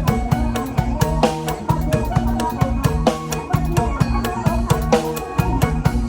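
Upbeat Isan mor lam music in the toei style. A drum kit keeps a fast, steady beat under a plucked-string melody, with no singing.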